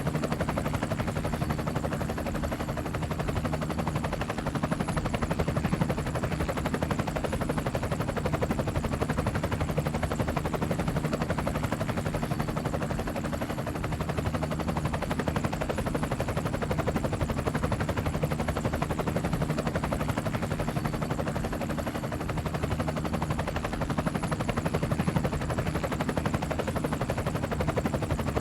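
Helicopter in flight: the rotor blades give a rapid, even chop over a steady engine hum, running without change.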